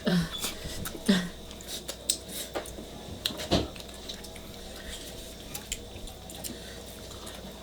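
Eating sounds: chewing and squishing with scattered light clicks and knocks of utensils on dishes, and two short murmurs within the first second and a half.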